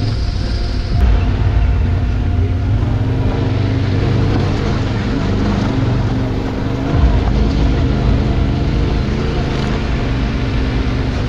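Yamaha Ténéré 700's parallel-twin engine running steadily while the bike is ridden off-road.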